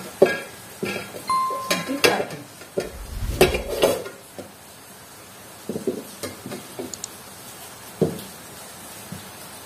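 Kitchen knife cutting guava into small pieces against a metal plate: a run of sharp clinks and taps over the first few seconds, a louder knock about three and a half seconds in, then only occasional taps.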